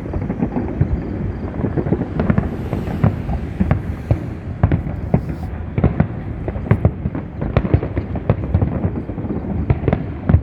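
Fireworks display: a dense, continuous barrage of aerial shell bursts, several sharp bangs a second over a steady rumble.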